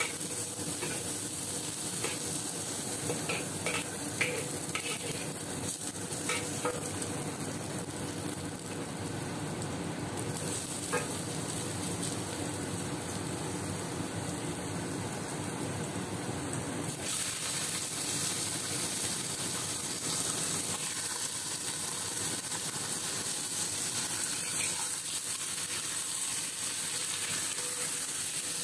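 Sliced garlic and shallots sizzling in hot oil in a black wok, stirred with a metal spatula. There are a few sharp clicks of the spatula against the pan in the first several seconds, and the hiss grows brighter a little past halfway.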